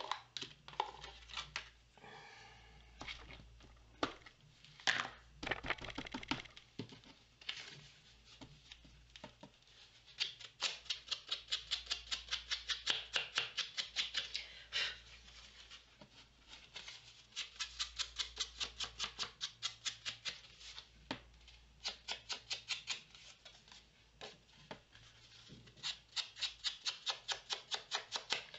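An ink applicator tapped quickly against a paper tag's edges to ink them, in runs of several taps a second, after a few scattered knocks at first as the tool is picked up and handled.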